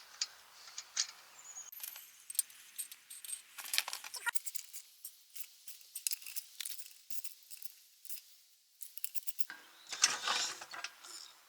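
Metal lug bolts clinking and rattling as they are handled and set into the wheel: a string of light metallic clicks and clinks with a short pause near the end.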